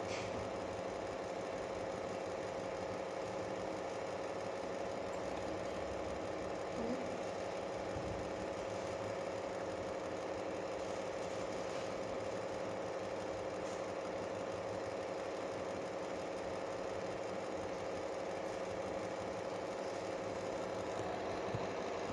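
A steady machine hum with several unchanging tones, like a motor running.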